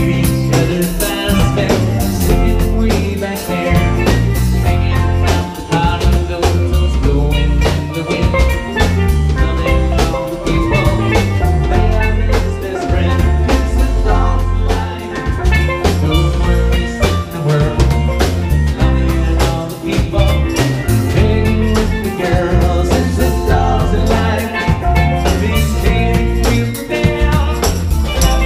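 Live band playing an instrumental passage with a steady beat: drum kit, bass, electric guitar and steel drums.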